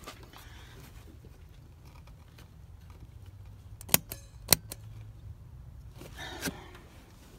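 Two sharp clicks about half a second apart, a little past halfway, from a car's floor-mounted headlight dimmer switch being pressed by hand to change the beams. There is some rustling of handling near the end over a low steady hum.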